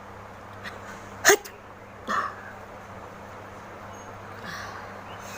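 A woman's short, sharp sneeze a little over a second in, followed about a second later by a smaller breathy burst, and a faint breath near the end.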